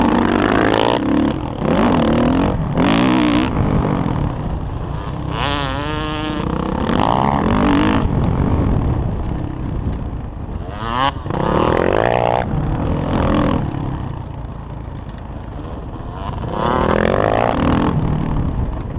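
Motocross dirt bike engine under hard riding, its pitch rising and falling several times as the throttle is opened and closed, with wind rumble on the microphone.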